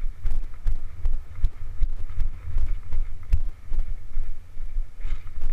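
Horse walking on soft sand: dull, irregular low thumps of its steps and the rider's motion carried into a helmet-mounted camera, with a few sharper clicks.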